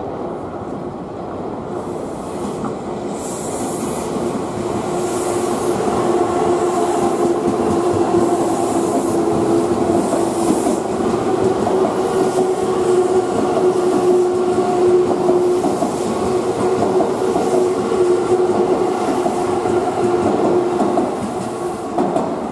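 Odakyu 30000 series EXE Romancecar express train passing through a station at speed without stopping. Its wheel-and-rail running noise grows louder over the first few seconds as it comes alongside, then holds, with a steady tone running through most of the passage.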